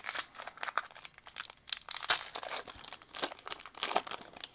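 A trading-card pack's wrapper being torn open and crinkled by hand, a dense run of sharp crackles that dies away just after the end.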